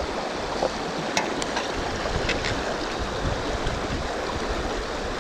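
River current rushing steadily, with a few faint clicks about one and two seconds in.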